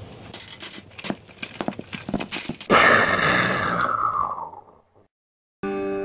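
A quick run of sharp cracks and pops, then a loud explosion-like blast about two and a half seconds in that dies away over about two seconds: the sound of meteors striking the railroad. After a short dead silence, a plucked guitar chord starts near the end.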